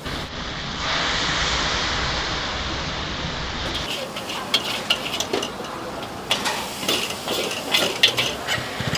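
Loud sizzling of ingredients in a very hot wok. From about four seconds in, a metal spatula clanks and scrapes against the wok in quick, irregular strokes as the noodles are stir-fried.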